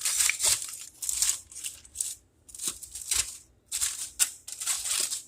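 Aluminium foil crinkling and rustling as it is handled, in several spells with short pauses between them.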